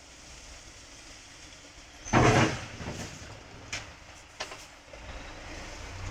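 A thick tree branch knocks against the roof antenna of a tipper truck's cab: one loud clattering knock about two seconds in, followed by a few lighter ticks, over the low steady running of the truck through standing water.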